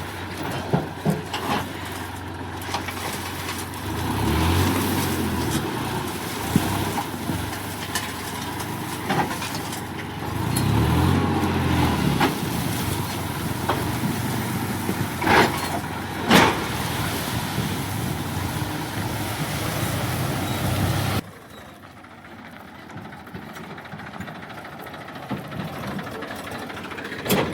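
Diesel engine of heavy earth-moving machinery running, rising twice as it works under load, with two sharp knocks about halfway through. Near the end the sound drops suddenly to a quieter engine hum.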